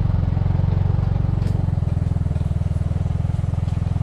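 Motorbike engine running at low revs: a steady, evenly pulsing low putter.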